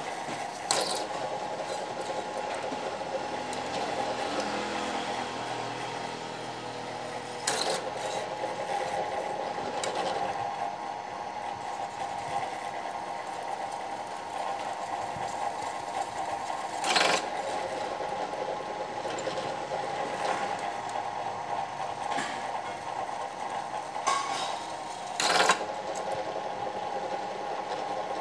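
Bench drill press running steadily, its bit fed down into a metal workpiece held in a vise. A few sharp knocks come now and then over the steady hum.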